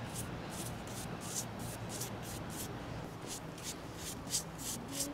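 Paintbrush stroking acrylic paint onto a PVC pipe bow: short swishes, about three a second, growing louder in the second half.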